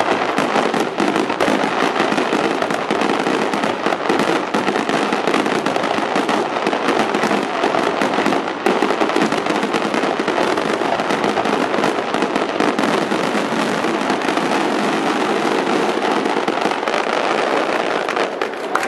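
Fireworks display finale barrage: many aerial shells and rising comets burst at once, their reports overlapping into one dense, continuous noise. It drops away near the end.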